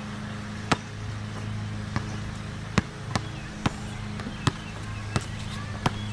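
Basketball dribbled on a hard outdoor court: about eight sharp bounces at an uneven pace, over a steady low hum.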